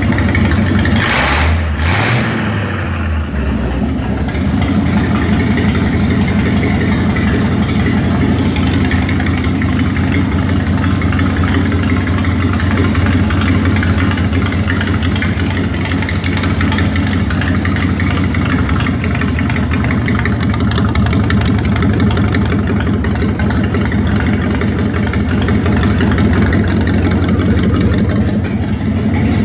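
Ford 302 V8 engine of a 22W cable tool drilling rig running steadily, with two short noisy bursts about one and two seconds in.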